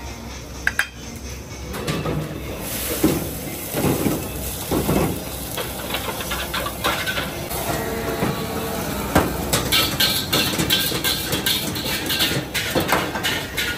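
Metal spatula clanking and scraping against a wok during stir-frying: many short strikes at an uneven pace over a steady hiss.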